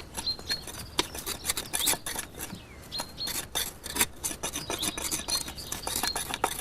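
A funny scraping, rasping noise in quick, irregular strokes, like something being rubbed or filed.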